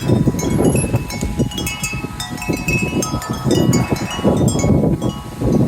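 Wind chimes ringing in the wind, many clear tones struck at irregular moments and overlapping as they ring on, with gusts of wind rumbling on the microphone.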